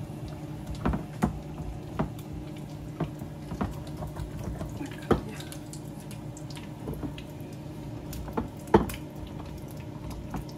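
Stone molcajete and pestle grinding wet salsa: irregular knocks and scrapes of stone on stone, roughly one a second, the loudest a little under nine seconds in.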